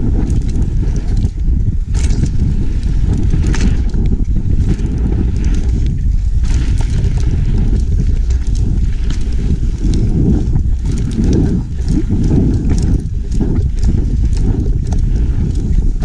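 Mountain bike descending a dirt trail: wind buffets the bike-mounted camera's microphone over a continuous rumble of tyres on dirt, with frequent sharp rattles and clacks from the bike over the bumps.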